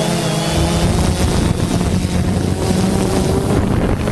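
Multirotor drone's electric motors and propellers buzzing steadily, picked up by the drone's own camera microphone, with wind rushing over the microphone. The motor tone shifts about half a second in as the motors change speed.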